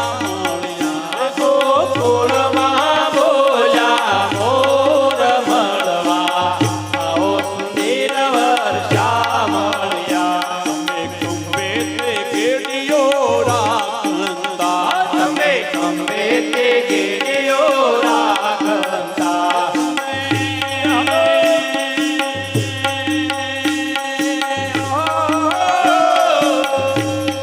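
Indian devotional folk music: a wavering melody over drum percussion, with a low bass note pulsing about every second and a half.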